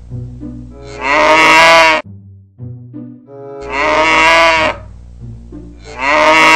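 Cow mooing: three long moos, each about a second long and a couple of seconds apart, over soft background music.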